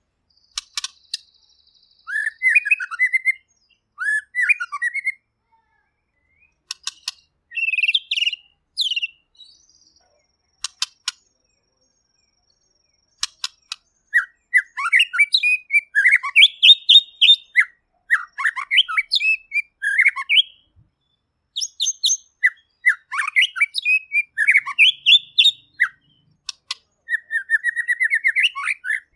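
White-rumped shama singing: bursts of varied, loud whistled and chattering phrases, broken by sharp clicks and a pause of a few seconds about halfway through. Near the end comes a fast trill of rapidly repeated notes.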